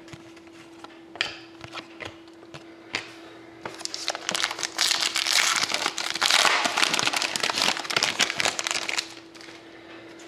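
Foil trading-card pack being torn open and crinkled, a dense crackling from about four seconds in until about nine seconds. Before it, a few light clicks of cards being handled.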